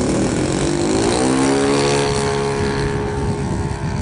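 Saito 1.25 four-stroke glow engine of an RC Midwest Citabria, opened up for takeoff: its pitch rises over the first second or so, then holds steady at full power as the plane lifts off and climbs.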